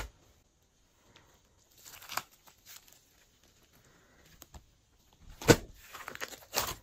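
Clear glitter slime being squished and pulled by hand, giving sticky crackling and popping clicks at uneven intervals, busiest in the last second and a half with a sharp snap about five and a half seconds in.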